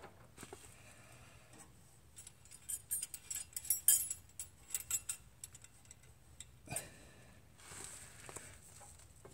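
A flurry of light metallic clicks and rattles from about two seconds in, as small hand tools and parts are handled, with one more click near the end.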